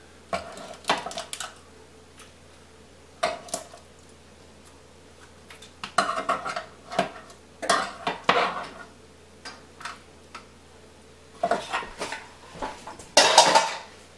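Clinks and scrapes of a metal muffin tin and an aluminium pizza pan as baked wonton-wrapper cups are lifted out of the tin and set on the pan. The clatter comes in scattered short bursts, loudest near the end.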